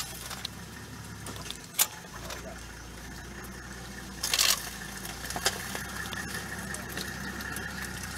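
Vehicle engine idling steadily with a low hum. A single sharp click comes about two seconds in, and a brief burst of noise a little past four seconds.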